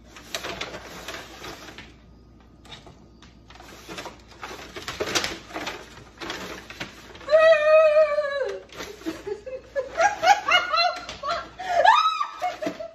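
Brown paper bag rustling and crinkling as tongs dig in it for live crabs. A woman's long, high squeal about seven seconds in, then bursts of laughter near the end, louder than the rustling.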